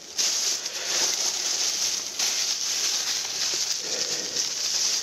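Tap water running into a stainless-steel sink as a glass coffee server and flannel filter are rinsed, a steady splashing hiss with a brief dip about two seconds in.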